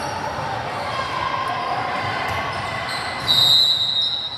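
Basketball game sounds: a ball bouncing on the court under crowd voices, then one sharp referee's whistle blast about three seconds in, about a second long and the loudest sound.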